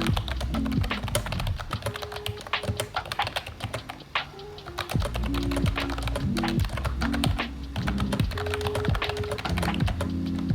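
Fast typing on a retro typewriter-style wireless keyboard, keys clicking in quick, uneven runs with a short lull about four seconds in, over background music.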